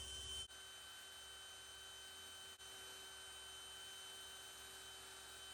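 Near silence with a faint, steady electrical hum. A slightly louder hum cuts off abruptly about half a second in.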